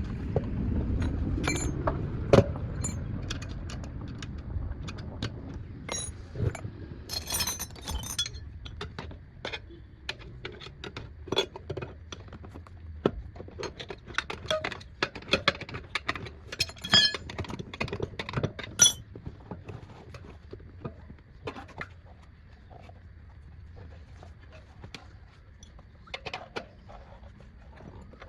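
Metal hand tools clinking, tapping and knocking against metal, a long irregular string of sharp clicks, with a low rumble in the first few seconds.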